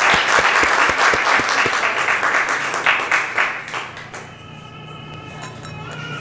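Applause, a dense patter of hand claps, for about the first four seconds, dying away; then a Neapolitan song's music comes in with long held notes.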